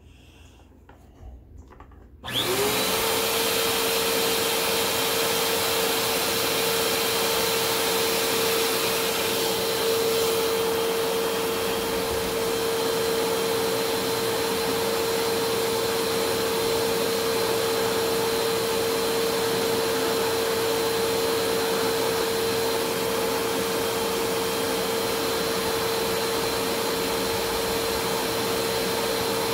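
Bissell PowerForce Compact upright vacuum's 6.2-amp motor switched on about two seconds in, spinning up within a fraction of a second to a steady loud run with a constant whine. It runs with its rusty motor spindle exposed while a stone is held against it to clean off the rust.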